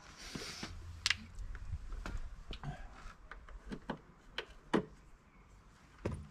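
Irregular sharp clicks and taps of a plastic trim removal tool prying at the aluminium window trim of a BMW 3 Series Touring (F31), with a short rustle at the start.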